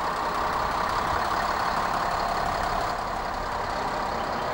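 Stadler Regio-Shuttle diesel railcar moving slowly past close by: the steady running noise of its underfloor diesel engine and wheels on the rails, swelling a little in the first second.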